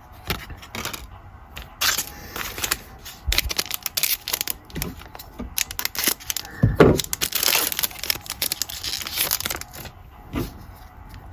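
Foil trading card pack and cards being handled: crinkling and rustling with light taps and clicks, in scattered bursts.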